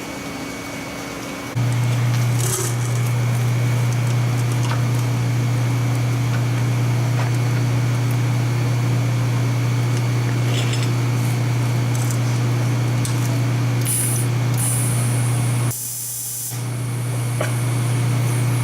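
Welder humming steadily once the trigger is pulled about a second and a half in, cutting out briefly near the end and starting again, with no arc crackle: the ground clamp isn't hooked up, so no arc strikes.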